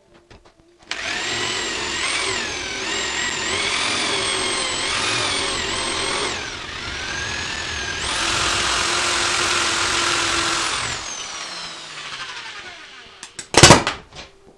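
Corded electric drill running under the trigger, its whine rising and falling in pitch, dipping briefly midway, then running fast before winding down. Near the end, a single loud sharp crack as the drill's taped, broken power cord shorts out in sparks.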